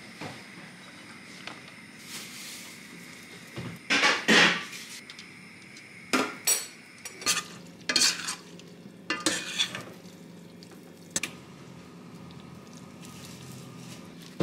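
Sauce sizzling in a pan on the stove while metal utensils clink and scrape against the pan and dishes. There are several sharp, loud clatters from about four to eleven seconds in.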